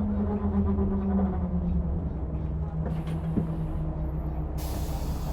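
Volvo bus engine running with a steady low drone, its pitch easing down slightly in the first two seconds. A loud hiss of air starts about four and a half seconds in.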